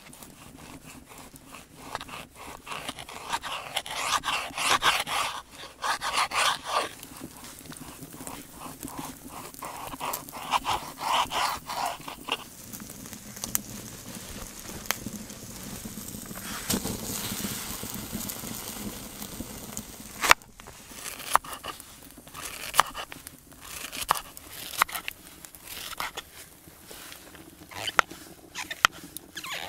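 A kitchen knife cutting smoked slab bacon and then mushrooms on a wooden cutting board. The first half is rasping, scraping strokes; from about two-thirds of the way in, a run of sharp knocks of the blade on the board as the mushrooms are sliced.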